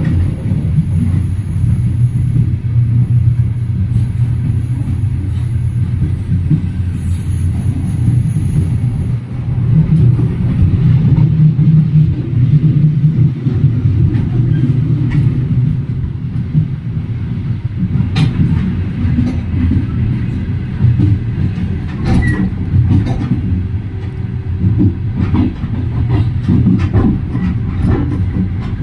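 Passenger train running at speed: the carriage wheels give a steady low rumble, with sharp knocks and clacks from the rail joints, more of them in the second half.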